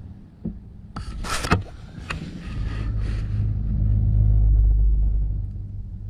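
Camera handled against a van's interior panel: a few sharp knocks in the first second and a half, then a low rumble that swells for about three seconds and fades.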